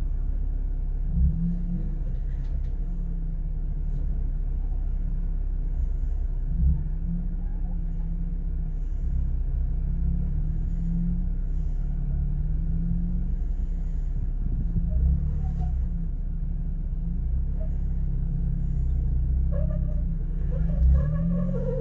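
Jeep engine rumble heard from inside the cab, running low and steady with its pitch wavering up and down. A few brief thumps come through over it.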